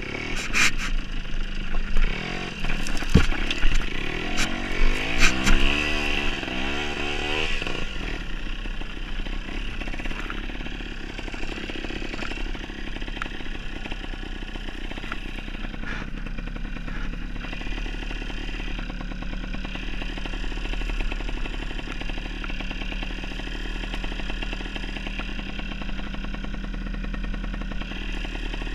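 Trials motorcycle engine revving up and down while the bike clatters and knocks over loose rocks for the first several seconds. It then settles into running steadily at low speed.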